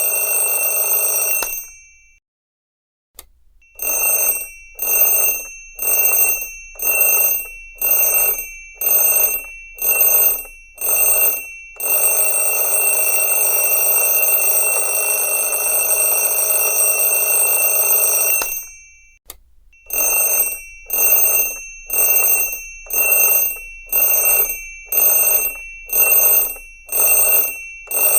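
Nap-timer alarm ringing. A continuous ring cuts off, then sounds in short pulses about once a second. It rings continuously again for about seven seconds, stops briefly, and goes back to pulsing about once a second.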